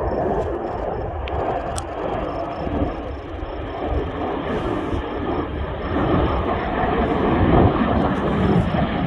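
Jet engine noise from a formation of USAF Thunderbirds F-16 Fighting Falcons flying past: a steady, rushing rumble that grows louder over the last few seconds.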